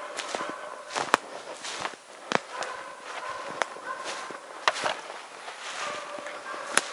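Footsteps of a person walking through snow in the forest, a crunching step about once a second, each with a sharp crack.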